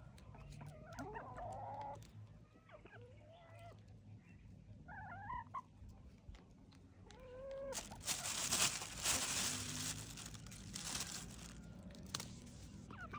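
Chickens clucking in short, rising and falling calls while they peck at greens. About eight seconds in, a loud rustling hiss takes over for two to three seconds.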